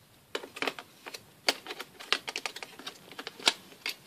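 Small steel screwdriver bits and a bit-holder handle clicking and clacking against each other and the hard plastic case as they are handled, in an irregular run of sharp clicks starting about a third of a second in.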